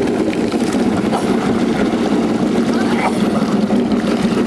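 Engine of a motorized watercraft running steadily at low speed, a constant drone, with wind and water noise on the microphone.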